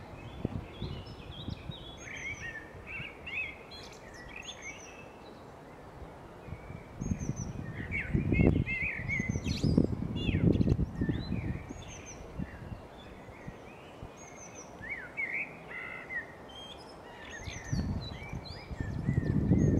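Woodland birdsong: a Eurasian blackbird and other songbirds singing in short, high phrases throughout. Bursts of low rumbling noise, louder than the birds, come about seven to eleven seconds in and again near the end.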